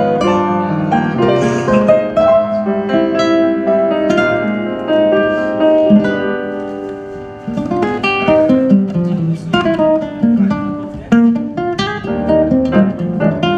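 Instrumental music led by a guitar playing a run of plucked notes, with a brief let-up about halfway before the next phrase.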